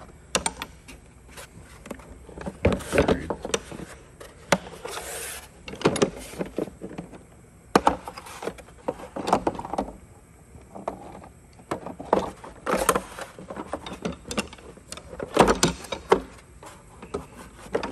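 Metal hand tools (ratchets and wrenches) being handled in a toolbox drawer: irregular clinks and knocks of steel on steel, with short scraping slides as tools are moved about.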